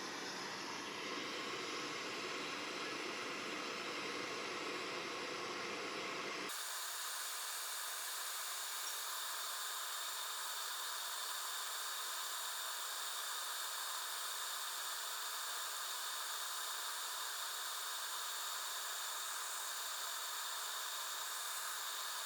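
MSR backpacking stove burner running with a steady hiss. About six and a half seconds in, the low rumble drops away abruptly and a thinner, brighter hiss carries on.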